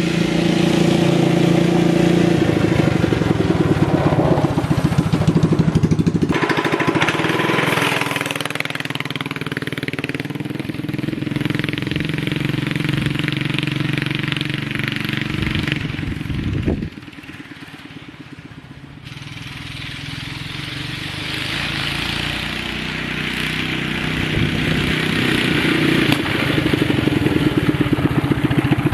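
Coleman CT200U-EX minibike's single-cylinder four-stroke engine running, its note rising and falling with the throttle. A little past halfway the sound falls away sharply, then builds back up steadily to full loudness.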